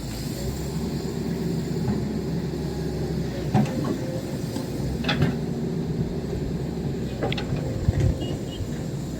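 Excavator's diesel engine running steadily, with a few scattered clanks.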